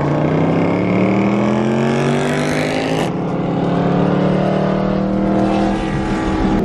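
Car engine accelerating hard, heard from inside the cabin: its note rises steadily, breaks at a gear change about three seconds in, then climbs again.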